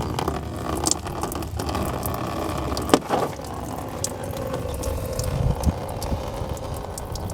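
Engine coolant draining from the radiator into a drain pan, a steady splashing stream, with a sharp knock about three seconds in.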